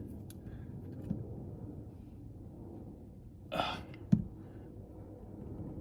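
Quiet fiddling with a car sun visor's mounting clip: a short sigh about three and a half seconds in, then one sharp knock.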